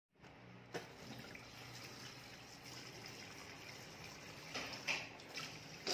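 Water running from a washbasin tap in a steady trickle as a child's mouth and face are rinsed at the sink, with a few short, louder sounds near the end.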